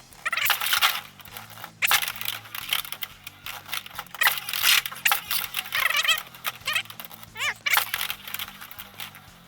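Plastic Beyblade X spinning tops clashing and scraping in a stadium: a series of sharp clacks, with short wavering whines as they grind along the stadium floor and rail, one of them sliding down in pitch near the end.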